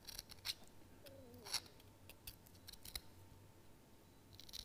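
Faint scratching of a boning knife's tip scoring the membrane over pork belly rib bones: a few short, irregular strokes.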